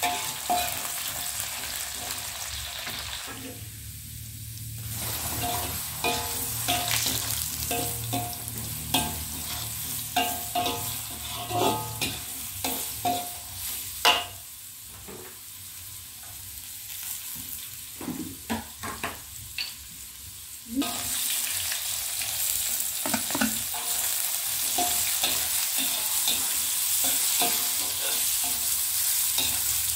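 Oil sizzling in a wok as cubes of oncom with shallots and chillies are stir-fried, a metal spatula scraping and knocking against the pan. The sizzle grows louder about two-thirds of the way through.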